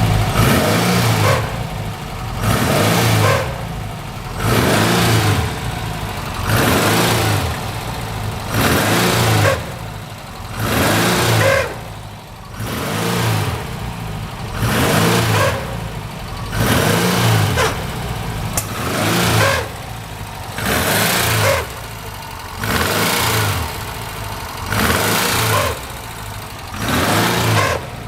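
Porsche 356 air-cooled flat-four engine revved in short blips about every two seconds, the pitch rising and falling back each time. It is being checked for a suspected abnormal noise from the clutch or a bearing.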